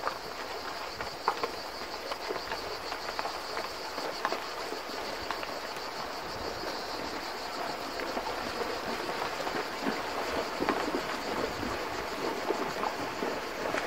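A string of horses walking over a pebbly riverbank and into a shallow river, with hooves knocking on stones and splashing in the water. The knocks come more often over the last few seconds, over a steady high insect buzz.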